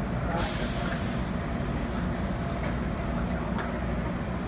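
A GO Transit bilevel train standing at the platform gives a sharp hiss of released air, starting about half a second in and lasting about a second, over the train's steady low idling rumble.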